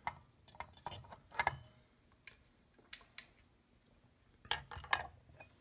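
Light metal clicks and clinks of an Autolite 4100 carburetor's booster venturi cluster being handled and set into place on the cast carburetor body, with a few louder knocks about a second and a half in and near the end.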